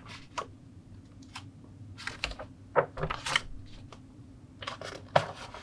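Plastic model kit parts being handled: irregular light clicks and rustles as parts trees are picked up and moved.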